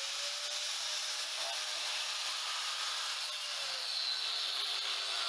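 Angle grinder with a thin cutoff wheel running and cutting through a steel plug. The motor's whine drops in pitch a little past three seconds in.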